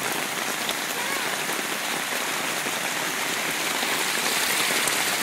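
Heavy rain falling, a steady dense hiss of drops with scattered small ticks.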